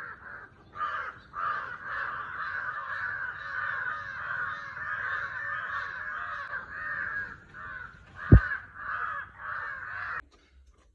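Many crows cawing together in a continuous, overlapping chorus, with a single low thump about eight seconds in. The chorus cuts off abruptly just after ten seconds.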